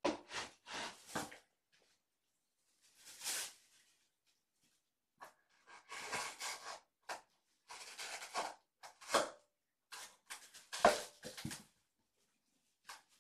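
Irregular bursts of rustling and scraping from things being handled, some brief and some lasting a second or so, coming in clusters at the start and through the second half.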